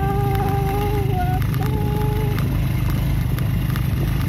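Small motorcycle riding over a rough gravel track: a steady low engine and wind rumble with scattered clicks of stones. For the first two seconds or so a person's voice holds a long wavering note, breaking off briefly near the middle.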